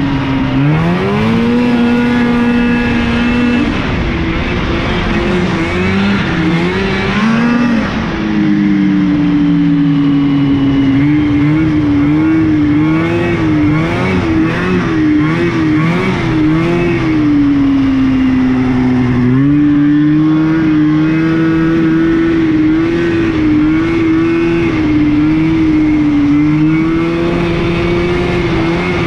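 Snowmobile engine heard on board while riding, its pitch climbing in the first couple of seconds, wavering up and down with the throttle through the middle, dropping briefly about two-thirds through, then holding steady.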